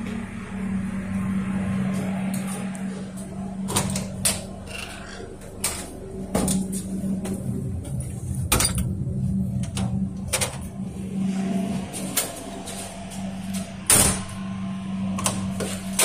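Inside a Metro suburban electric train carriage: a steady low hum, broken by scattered sharp clicks and knocks, the loudest about fourteen seconds in.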